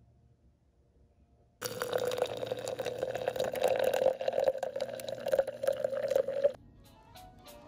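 Water poured into a cup onto instant coffee granules, a steady pour with a fizzing crackle, starting about a second and a half in and stopping suddenly. Music with a light beat begins near the end.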